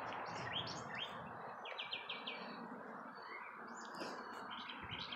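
Songbirds chirping: scattered short, high calls, with a quick run of repeated notes about two seconds in, over faint outdoor background noise.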